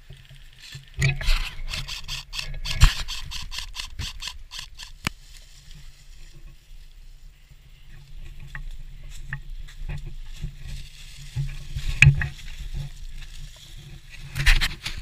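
A rapid run of sharp clicks, about six a second, lasting a few seconds, then a few single sharp knocks, over a steady low rumble.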